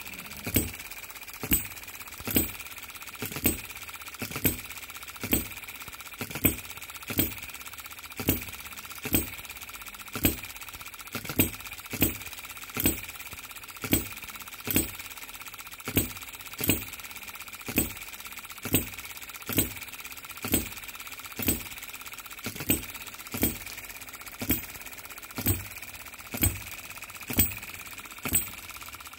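Baker Ball Top Monitor B01 model hit-and-miss engine, a 3.6 cc single-cylinder four-stroke petrol engine, running light. It gives a sharp pop a little more than once a second, slightly uneven, as the governor lets it fire and then coast. A steady faint high whine runs underneath.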